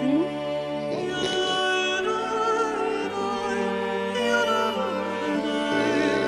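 Background music: sustained instrument tones under a wavering melody line.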